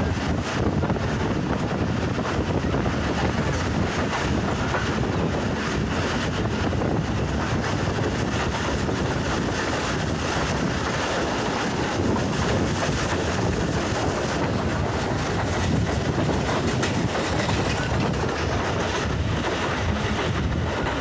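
Pakistan Railways passenger train, the 102 Down Subak Raftar, running at speed, heard from on board: a steady rumble of wheels on the rails.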